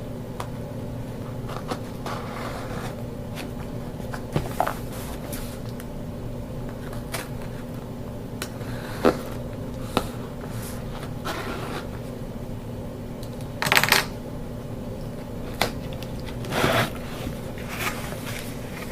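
A cardboard shipping box being handled and opened: scattered rustles, scrapes and taps of cardboard and packing material, the loudest short rustles about fourteen and seventeen seconds in, over a steady low hum.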